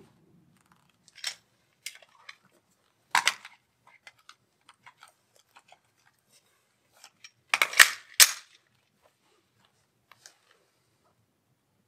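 Sharp metallic clicks and clacks of a semi-automatic pistol being handled between strings of fire: scattered light clicks, then a loud double clack about eight seconds in, in keeping with a fresh magazine being seated and the slide going forward.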